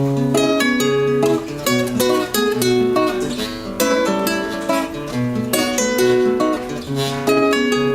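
Acoustic guitar (violão) playing an instrumental passage between sung verses: rhythmic strummed chords and plucked notes, with no singing.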